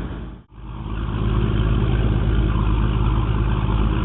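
Small boat's engine running steadily, the sound cutting out for an instant about half a second in and then carrying on unchanged.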